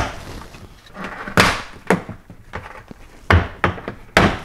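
Plastic push-clips of a 2019+ Toyota RAV4's liftgate interior trim panel popping loose as the panel is pulled off by hand: several sharp snaps, with some rustle of the plastic between them.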